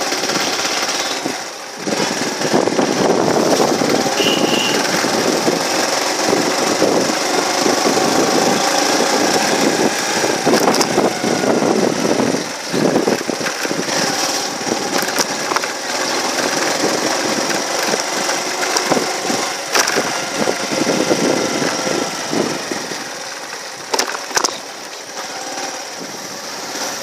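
Small engine of the vehicle carrying the camera running as it rides along a street, a steady rattling drone mixed with road and wind noise. It dips briefly a couple of times, gives a few sharp knocks, and runs quieter near the end.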